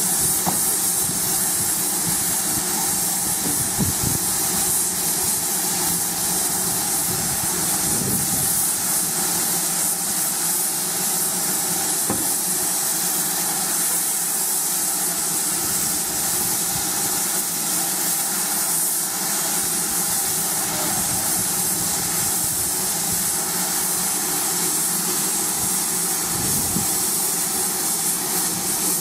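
GWR 5600 class 0-6-2 tank engine No. 5643 standing in steam, giving off a steady hiss of escaping steam.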